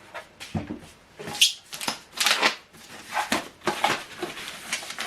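Rustling and knocking from handling the unboxed rear speakers and their packaging, a quick series of irregular scrapes and light knocks with a soft thump about half a second in.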